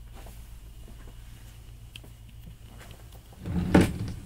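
A desk drawer being pulled open, a short sliding rumble about three and a half seconds in, over a steady low hum.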